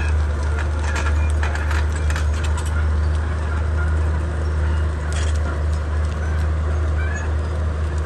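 Komatsu D31P bulldozer's diesel engine running with a steady low drone, with sharp metallic clicks in the first few seconds and again about five seconds in, and short high squeaks scattered throughout.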